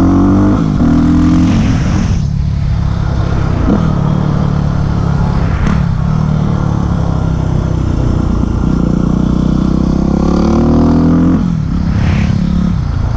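Yamaha WR250X's single-cylinder four-stroke engine under hard acceleration, its pitch climbing through the revs and falling back as the throttle closes about two seconds in, then climbing again and dropping off near the end.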